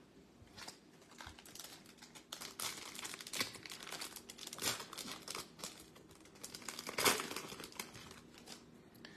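A Topps Chrome trading card pack's wrapper being torn open and crinkled by hand: an irregular run of crackling rustles, loudest a few seconds in and again about seven seconds in.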